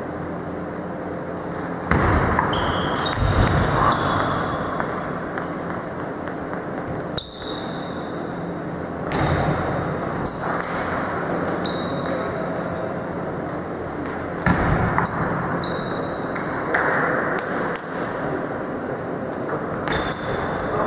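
Table tennis ball clicking back and forth between the rackets and the table in short rallies, each bounce with a bright little ping. The rallies come in several bursts separated by pauses, over a steady hubbub of the sports hall.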